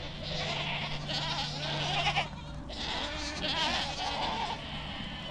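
A herd of Spanish goats bleating, many overlapping calls one after another.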